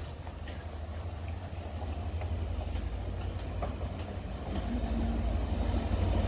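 Diesel locomotive of a Network Rail test train approaching, a low rumble growing steadily louder.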